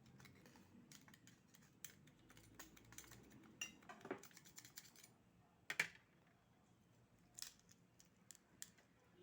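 Scattered light clicks and taps of oyster shells and utensils being handled, the sharpest click about six seconds in.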